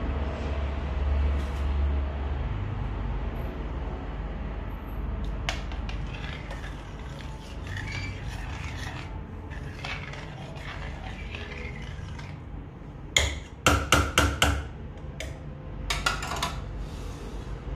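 Kitchen utensils and cookware clinking and scraping, with a quick run of sharp clinks about 13 seconds in and a few more near the end. A low rumble sits under the first couple of seconds.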